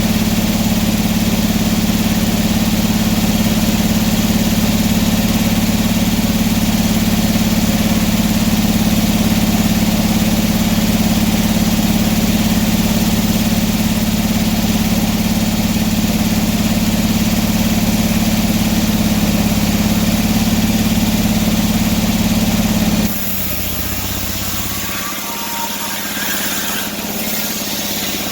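Antique sawmill's engine running steadily with a deep, even hum. About 23 seconds in, the sound changes abruptly to a quieter mix with more hiss and without the deep hum.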